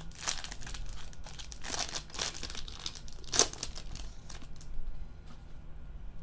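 Plastic wrapping on a trading-card box crinkling and tearing in several short bursts as the box is unwrapped, the sharpest burst about three and a half seconds in.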